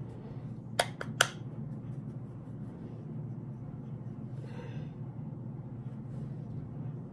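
Three quick, sharp clicks about a second in, over a steady low hum, then a short soft breath a little past the middle.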